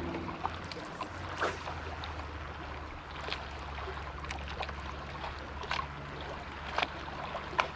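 Steady low hum of the fishing boat's motor, with scattered light clicks and ticks over it.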